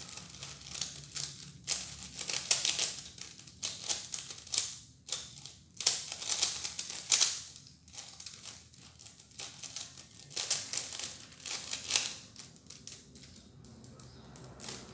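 Plastic 3x3 Rubik's cube being turned fast by hand: quick bursts of clicking and clacking as the layers snap round, with short pauses between bursts, going quieter near the end. The solver is working through the cube's second layer.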